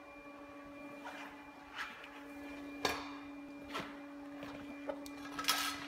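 Several short knocks and scrapes from the long metal bore gauge rod and its measuring head being handled on the floor, the loudest near the end. A steady electrical hum sits under them.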